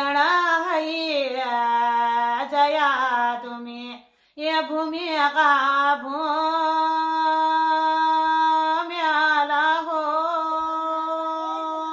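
A woman singing a Kumaoni jhoda, a devotional folk song in praise of the gods, with no accompaniment. Her single voice moves in long, slow held notes, with a brief pause for breath about four seconds in.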